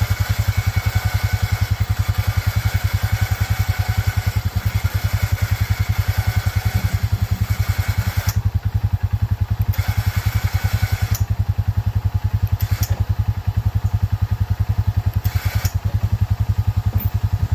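A small engine idling steadily with an even low chugging pulse, about ten beats a second. A higher hiss over it drops away briefly a few times in the second half.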